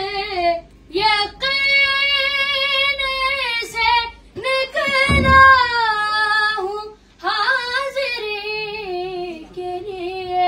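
A child's high voice singing a devotional manqabat unaccompanied: long held notes with wavering, ornamented pitch, in phrases broken by short breaths. A dull low thump sounds about halfway through.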